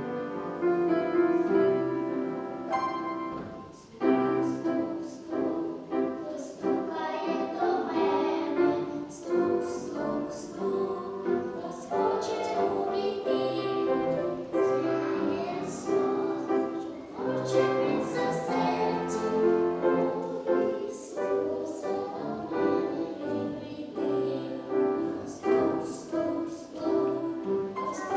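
Music with singing, voices over a piano accompaniment, in a slow hymn-like song.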